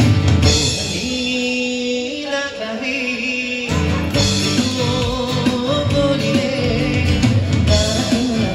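A song playing, with a singer's voice holding long notes over the instrumental accompaniment.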